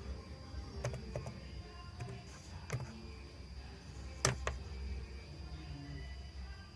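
A handful of sharp, isolated clicks from operating a computer, the loudest about four seconds in, over a steady low electrical hum and a faint high whine.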